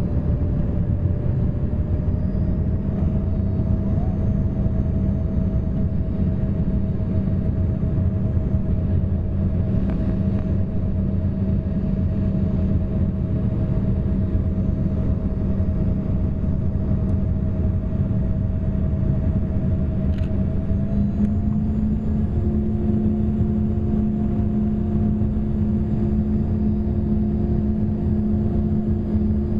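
Passenger-cabin noise of an Embraer ERJ-145 regional jet on approach: a steady din of its rear-mounted Rolls-Royce AE 3007 turbofans and rushing air, with a steady engine hum. About two-thirds of the way through, the engine tones rise slightly in pitch and a second steady tone joins them.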